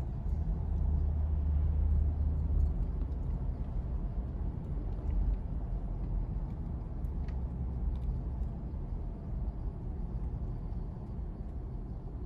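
Steady low rumble of a car's engine and tyres heard from inside the cabin while driving along a road, a little louder in the first few seconds.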